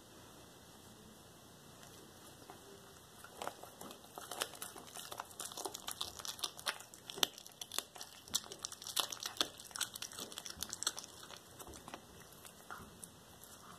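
Domestic cat chewing a whole small raw rat: an irregular run of sharp crunches and tearing clicks from its teeth working through the rat's flesh and bones, beginning about three and a half seconds in.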